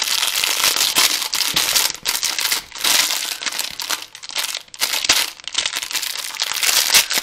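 Packaging being handled and crinkled in the hands: irregular crackling and rustling, loud at times.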